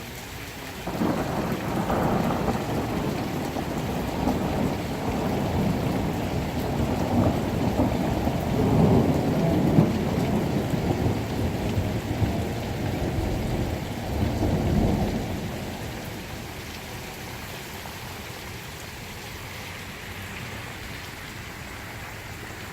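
A long roll of thunder rumbling for about fifteen seconds, then fading away, over steady rain falling and running off.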